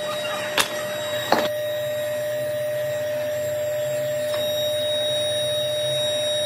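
Steady, even whir of a motor-driven air blower feeding the foundry's coal-fired melting furnace, with a constant tone running through it. Two sharp clicks sound in the first second and a half.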